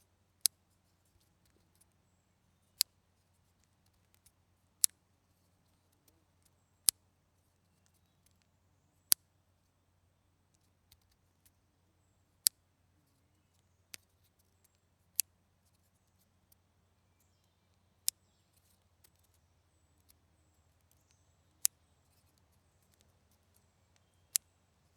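Spring-loaded clothespins clicking: about eleven sharp snaps at irregular intervals of two to three seconds, with faint small clicks of handling between them.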